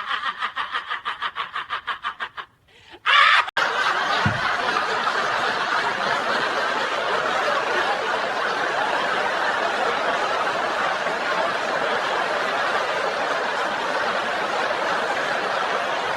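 Laughter: a rapid, pulsing laugh that fades out, a brief loud burst about three seconds in, then steady group laughter.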